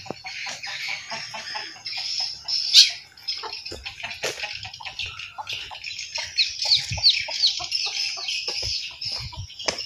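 Birds chirping and calling, with a run of short falling calls, about three a second, in the second half.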